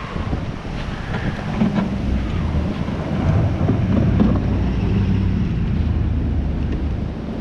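Engine of a snow-plow pickup truck running as it drives past close by, loudest about halfway through, with wind buffeting the microphone throughout.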